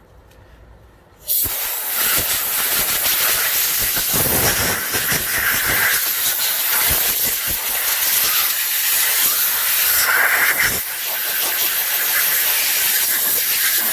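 Loud, steady hiss of a pressurised spray jet on the brake parts, starting about a second in and running on without a break, with a few light knocks of handling under it.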